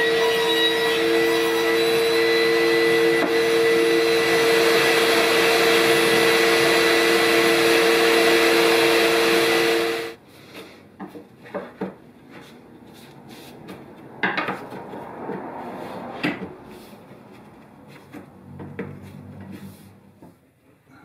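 Ryobi table saw running with a steady whine as a plywood crosscut sled is pushed through the blade. The sound cuts off abruptly about ten seconds in. Light scattered knocks and rubbing of wood being handled follow.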